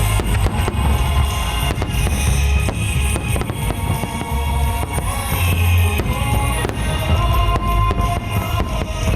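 Fireworks bursting and crackling in rapid, continuous volleys of sharp cracks and booms, over loud music with a heavy drum beat played over loudspeakers.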